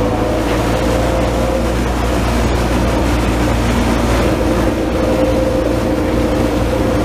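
Taipei Metro train running along an elevated guideway, heard from inside the car: a steady low rumble with a thin motor whine that fades about two seconds in and returns near the end.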